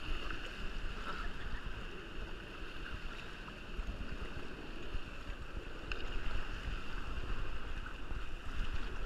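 Steady rush of water at a water park, with wind buffeting the microphone as a low rumble.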